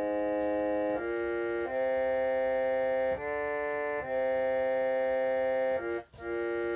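Harmonium played with held, sustained reed notes that step to a new pitch about every second or so, the opening of a devotional kīrtan melody, with a short break in the sound a little after six seconds.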